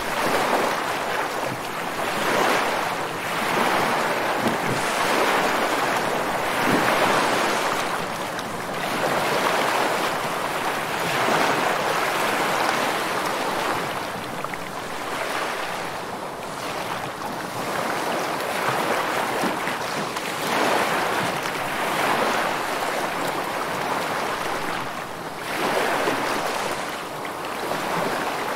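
Ocean surf: a steady hiss of waves washing in, swelling and ebbing every few seconds.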